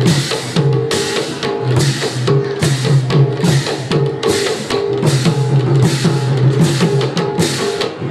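Khol barrel drum played in a steady, driving rhythm with sharp metallic crashes, about one and a half a second, in the instrumental accompaniment of a Bhaona dance.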